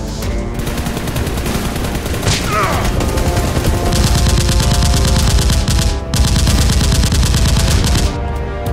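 Rapid automatic gunfire sound effect, a fast unbroken rattle of shots that breaks off briefly about six seconds in and stops near the end.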